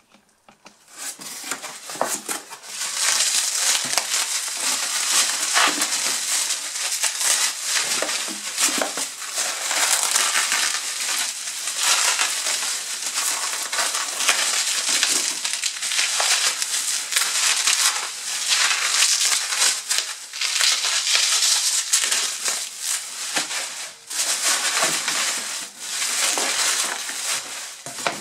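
Plastic bubble wrap crinkling and rustling loudly as it is pulled and crumpled out of a cardboard box. The crackling starts about a second in and continues without a break.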